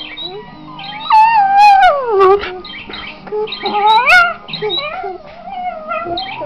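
Patterdale terrier × Border terrier cross howling along to instrumental music, drawn-out wavering howls that slide up and down in pitch, the loudest about a second in, falling over about a second, and another rising around four seconds in.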